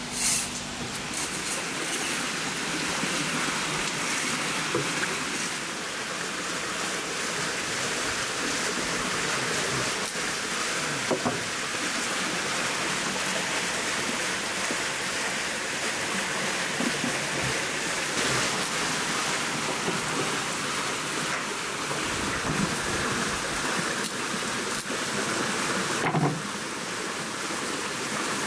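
Steady rushing of a flowing river, with a few faint light clicks and taps from knife work close by.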